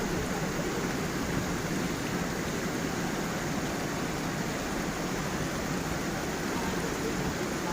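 Small waterfall and stream running steadily, an even rush of flowing water without breaks.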